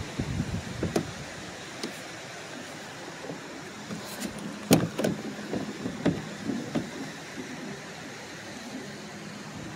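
A series of irregular knocks and clunks, the loudest one about halfway through, over a faint steady hum.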